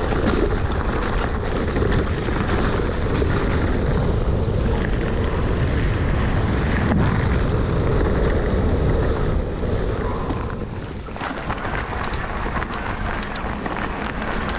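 Wind rushing over an action camera's microphone, mixed with a mountain bike's tyres and frame rattling over a rough trail on a fast descent, with frequent small knocks.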